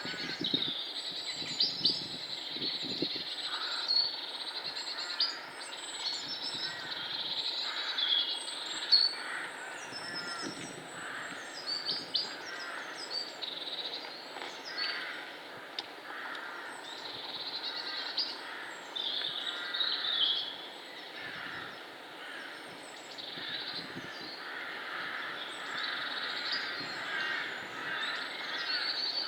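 Several woodland birds singing and calling together, with many high chirps, trills and sweeping notes overlapping throughout. There are a few low thuds in the first few seconds.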